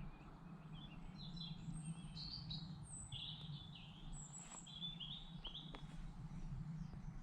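Small birds chirping, a run of short high notes over several seconds, over faint low background noise.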